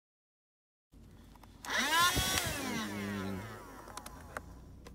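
A cordless USB-rechargeable handheld vacuum switched on after about a second of silence: its small motor whines up to speed with a rising pitch, then is switched off and winds down, its pitch falling away over a second or two.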